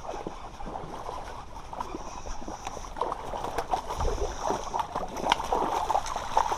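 A hooked chain pickerel thrashing and splashing at the water's surface as it is reeled in to the bank, with short clicks from the reel being cranked. The splashing grows heavier and louder about halfway through.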